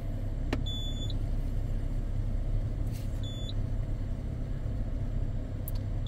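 Toyota Avalon's V6 engine idling, a steady low rumble heard inside the cabin, with three faint clicks spread through it.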